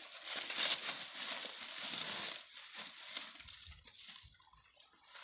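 Clear plastic bag crinkling and rustling as it is handled, loudest for about the first two and a half seconds. After that comes softer rustling with a few dull bumps.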